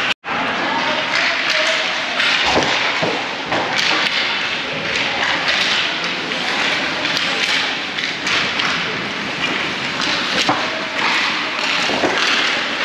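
Steady noise of youth game play with scattered sharp thumps and knocks, and faint voices beneath. The sound cuts out for an instant right at the start.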